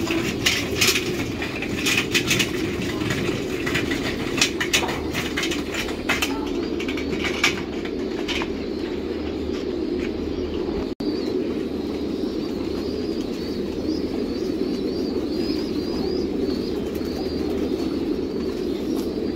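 A large flock of caged pigeons cooing together as a dense, steady low drone. Over the first several seconds there are sharp clatters and rattles, and later faint high chirping runs over the top.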